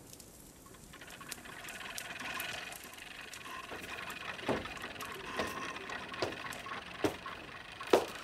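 Radio-drama sound effects of flood water settling: a swelling hiss with scattered drips and light pattering. From about four and a half seconds in, five knocks follow, spaced about a second apart.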